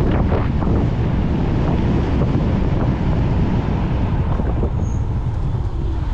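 Loud, steady wind buffeting on the microphone from riding at speed on an electric scooter.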